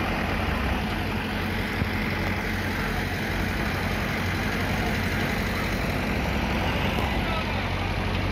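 Heavy cargo truck diesel engines running as loaded trucks pull slowly up and past, a steady low engine hum throughout.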